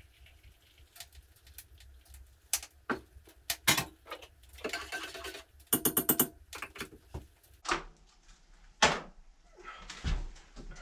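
Cookware being handled on a wooden bench: a metal saucepan and utensils clink and knock in scattered sharp hits. About halfway there is a short rushing noise, then a quick rattle of clicks.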